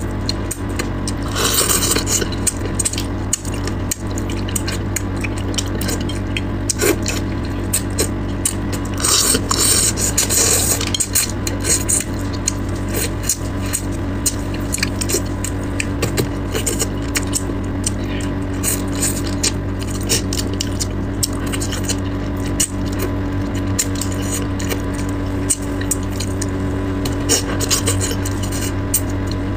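Close-miked eating sounds of a person eating braised fish: wet smacking, chewing clicks and sucking at the meat on the bones, with louder slurps about 1.5 s in and again about 9 to 11 s in, over a steady low hum.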